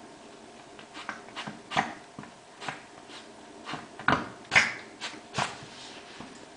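Siberian queen, just mated, grooming herself, with a string of short, sharp sounds from her about once a second, the loudest about four seconds in.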